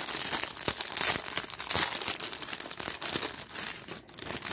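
Clear plastic packaging bags crinkling in the hands as they are handled, a dense run of irregular crackles that eases off briefly near the end.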